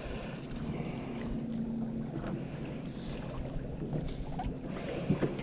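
Open-water boat ambience: wind on the microphone and water against the hull of a small fishing boat, with a faint steady hum and a few faint clicks.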